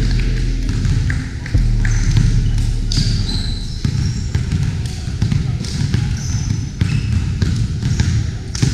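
Voices chatting on a basketball court, with a basketball bouncing now and then on the hardwood gym floor.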